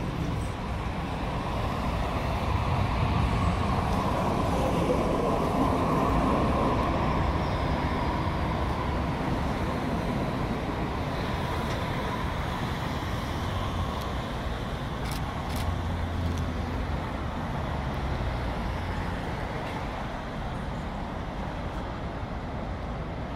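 Muni Breda light-rail streetcar pulling in. Its electric hum and rumble grow over the first few seconds, with a high whine that falls in pitch as it slows. After that comes a steady mix of streetcar and street traffic noise, with a couple of sharp clicks about 15 seconds in.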